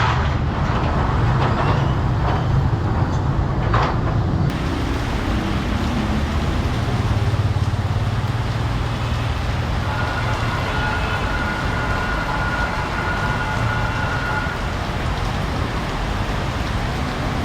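Road traffic engines running steadily at a railway level crossing, with a few knocks in the first few seconds and a steady high-pitched tone lasting about four seconds in the middle.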